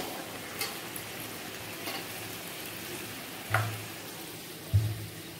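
A puri deep-frying in hot oil in a kadai, a steady sizzle as it is pressed down with a slotted metal spoon. A few sharp clicks sound over the sizzle, with two louder knocks in the second half.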